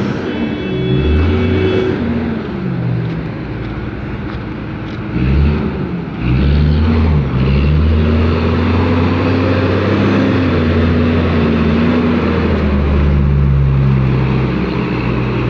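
Reach stacker's diesel engine running loud, its pitch rising and falling again and again as the machine is revved and maneuvered.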